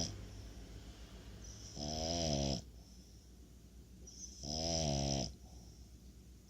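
French bulldog snoring: two long, pitched snores about two and a half seconds apart, each with a high hissing wheeze that starts just before it.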